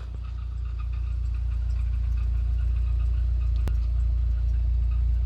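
Rover 800 car running with a steady low rumble that grows louder over the first two seconds, and faint, regularly repeating high chirps above it. A single sharp click about three and a half seconds in.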